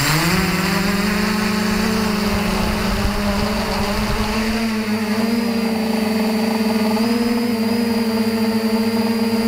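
Quadcopter motors and propellers buzzing steadily, heard through the drone's onboard camera. The pitch climbs in the first half second as the motors spin up, then holds. A low rumble underneath dies away about halfway through.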